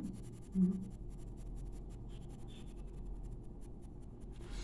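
Coloured pencil (ochre) scratching across drawing paper in quick, repeated shading strokes. There is a short hum of the voice about half a second in.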